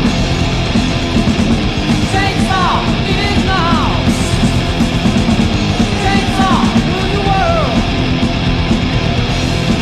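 Heavy metal band recording with guitar. Short, high, falling glides come back every couple of seconds over the steady, loud band sound.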